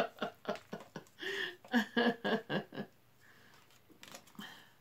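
Low, murmured speech for the first few seconds, then quieter handling of tarot cards with a few faint light clicks.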